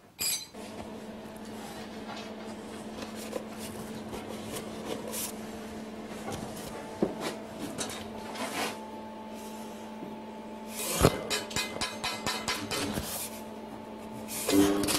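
Workshop with a steady low electrical hum and light clicks and clinks of steel being handled on a bench, with a quick run of clicks about eleven seconds in. Just before the end an electric welding arc strikes and starts to crackle.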